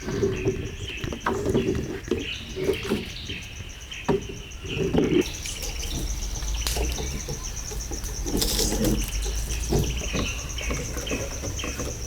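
Birds chirping over a fast, steady insect trill, with scattered knocks and rustles from close handling.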